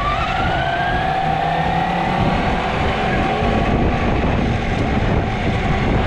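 Electric motor whine rising in pitch as it speeds up just at the start, then holding a steady tone, over a constant rush of wind on the microphone.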